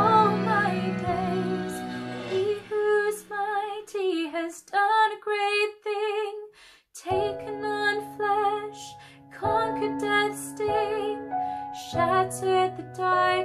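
A woman singing a slow song solo, her voice wavering with vibrato over a soft instrumental accompaniment of low held notes. The sound breaks off briefly about seven seconds in, then the singing resumes with the accompaniment.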